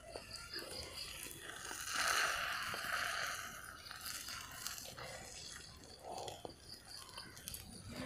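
Beaten egg frying in sesame oil in a small pan: a quiet sizzle and crackle, with a steel spatula scraping at the pan as it lifts the edge of the omelette.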